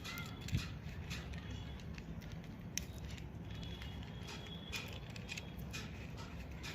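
Small non-magnetic 3×3 Rubik's cube being turned by hand: irregular plastic clicks and rattles as the layers are twisted, over a steady low hum.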